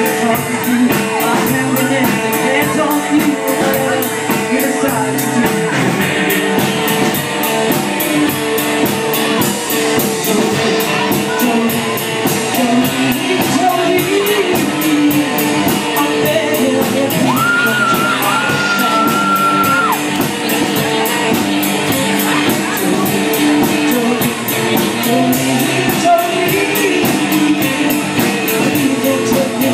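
Live rock band: a woman singing into a microphone over acoustic guitar and a drum kit, with one high note held for a couple of seconds about two thirds of the way through.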